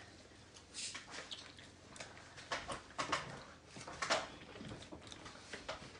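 Close-up eating sounds: wet chewing, lip smacks and small clicks from fried chicken wings being eaten, in short scattered bursts.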